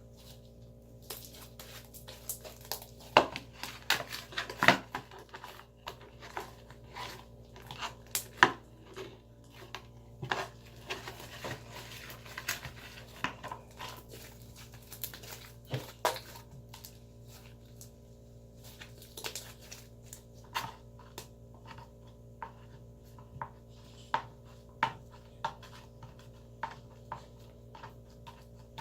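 Glitter slime made of clear glue and clear Tide being stretched and squeezed by hand, giving irregular sticky pops and clicks, thick over the first half and sparser later.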